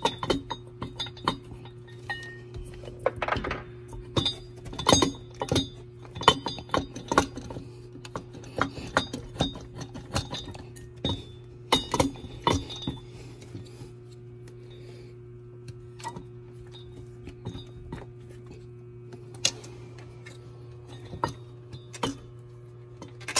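Screwdrivers clinking and scraping against the metal impeller pump housing as the old rubber impeller is pried out: a long run of irregular sharp metal clicks and knocks over a steady low hum.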